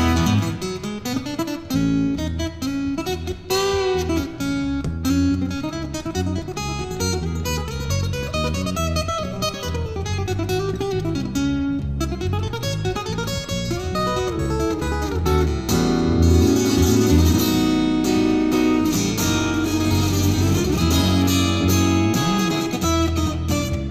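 Acoustic guitar played fingerstyle, with a deep bass line underneath, in an instrumental duet. Notes bend up and down in pitch in the middle stretch, and the playing grows fuller and louder about two-thirds of the way through.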